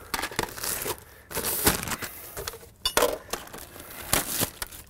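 Crinkling plastic and sharp clicks as a new white plastic dryer vent hood and its wrapping are handled, in irregular bursts.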